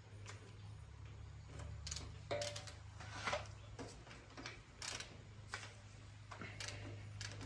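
Scattered clicks and light metallic taps from a Craftsman torque wrench and socket as the cylinder head bolts are tightened to torque in sequence, over a steady low hum.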